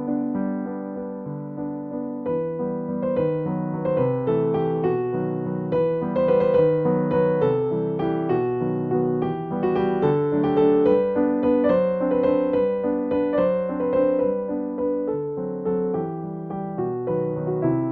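Background music: soft electric piano playing a steady stream of sustained chords and melody notes.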